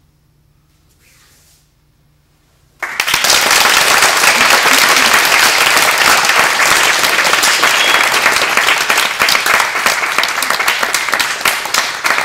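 Near quiet for the first three seconds, then an audience breaks into loud, dense applause that keeps going, easing slightly near the end.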